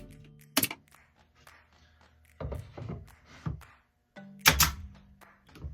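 Several separate wooden knocks and thunks from pieces of wood being handled in a woodshop: one about half a second in, a scattered cluster in the middle, and the loudest pair near the end. Faint background music runs underneath.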